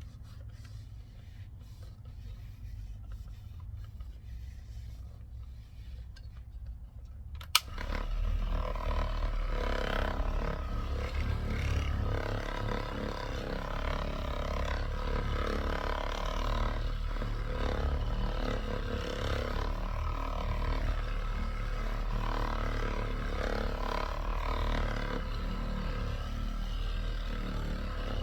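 Electric buffer switched on with a click about a third of the way in, then running steadily as it polishes a plastic car headlight lens.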